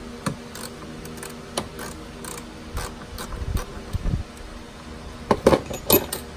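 A gloved hand handles a plastic engine-bay shroud, making a string of light clicks and knocks with some dull thumps, and two louder bursts of knocking near the end. A steady low hum runs underneath.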